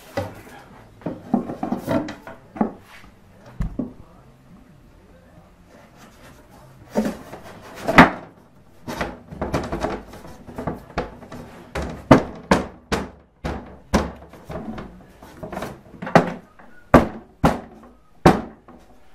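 A thin wooden back panel knocking and thunking against a walnut cabinet case as it is pushed and tapped into place by hand. An irregular run of sharp wooden knocks, loudest about eight seconds in.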